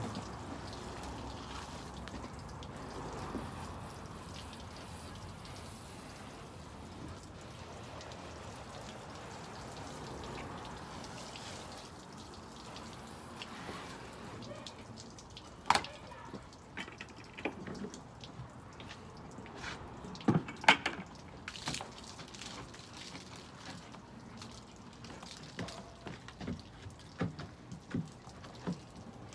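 Garden hose water spraying and splashing onto a Land Rover's body for roughly the first half. Then the spray stops and a few sharp knocks and clatters follow, the loudest about 16 and 20 seconds in.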